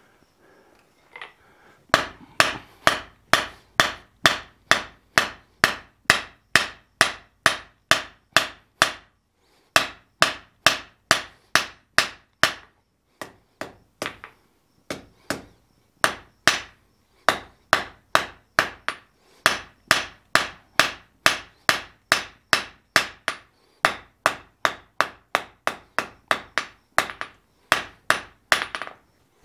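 Blacksmith's hand hammer striking a red-hot steel bar on the anvil: steady blows at about two a second, starting about two seconds in, with a short break near ten seconds. The bar is being flattened and shaped for a board hook.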